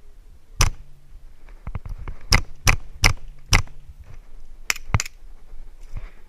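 Airsoft gun firing single shots: about eight sharp cracks at uneven intervals, most of them bunched in the middle.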